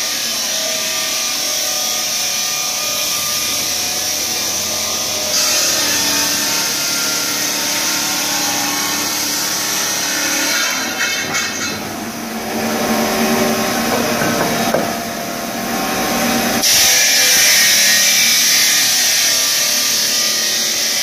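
Electric marble cutting machine sawing through marble slabs: a loud, steady, high-pitched grinding hiss. It grows louder about five seconds in, eases for a few seconds past the middle, and is loud again near the end.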